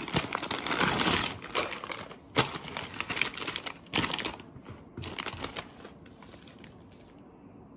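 Clear plastic bags filled with small building-kit pieces crinkling as they are handled and shuffled on a table, with sharp crackles throughout. The crinkling dies down near the end.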